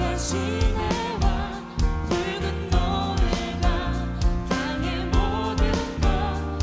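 Live Korean worship band playing a praise song: voices sing the melody in Korean over acoustic guitar, bass and a steady drum beat.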